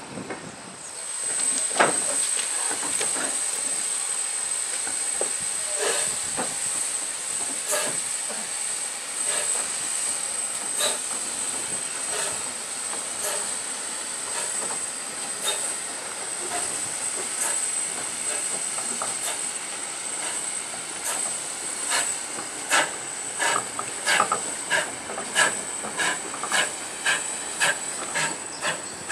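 Steam locomotive (GWR 5700-class pannier tank 5786) hissing steadily with steam as it hauls a goods train slowly past. In the last several seconds a regular clicking, about one and a half clicks a second and growing louder, comes from the wagons' wheels going over rail joints.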